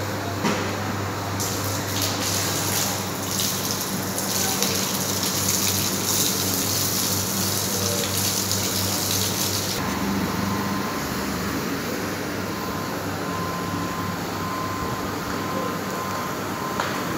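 Steady low hum of running dairy-plant machinery. A loud hissing rush sounds over it from about two seconds in until about ten seconds in, then stops, leaving the hum with a thin steady whine.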